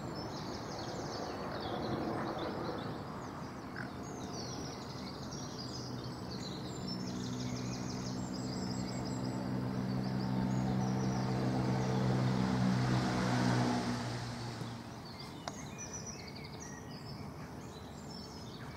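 Songbirds singing in a dawn chorus, with a distant engine hum that swells through the middle and then fades away.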